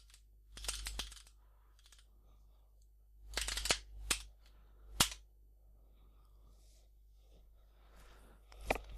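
Computer keyboard keys clicking in short bursts of keystrokes: a few about half a second in, a quick run around three and a half to four seconds in, one sharp press about five seconds in, and another burst near the end.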